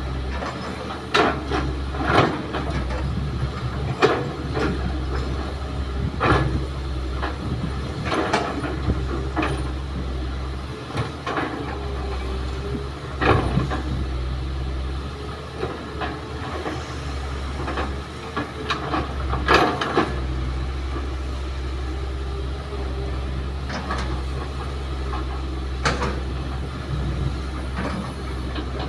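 Kobelco hydraulic excavator's diesel engine running steadily as it digs earth and rock and loads a dump truck, with repeated sharp clanks and thuds of the bucket and of soil and stones dropping into the steel truck bed.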